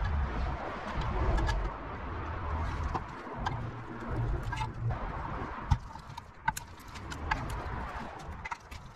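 Scattered light clicks and taps from handling the plastic base of a bathroom scale, its wires and small hand tools, over a low rumble.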